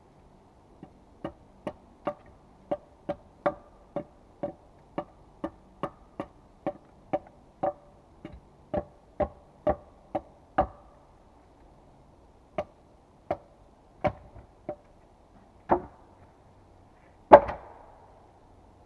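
A tool striking wood in sharp blows, about two a second for some ten seconds, then five slower strikes, the last one the loudest.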